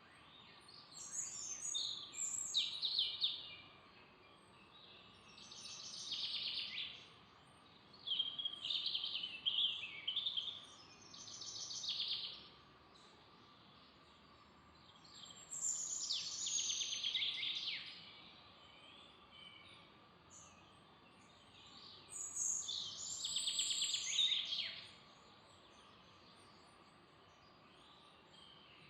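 Songbirds singing in a forest: short, high, trilled song phrases come every few seconds with quiet pauses between them, over a faint steady hum.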